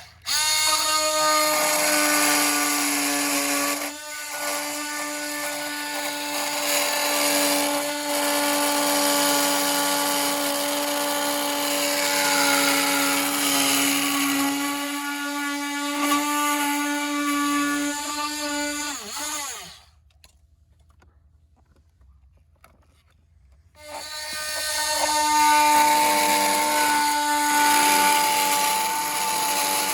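Handheld power tool whining at a steady pitch while cutting a plastic tab off a ride-on toy car's door. It stops about twenty seconds in and starts again about four seconds later.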